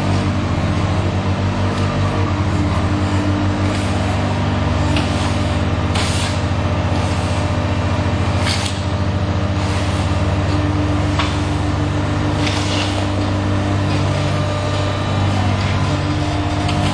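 Concrete pipe making machine running: a steady mechanical hum with several held low tones, broken several times by short sharp noises.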